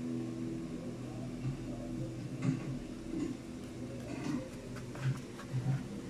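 Paper sketchbook pages being handled and turned: a few short rustles and taps, mostly in the second half, over a steady low hum.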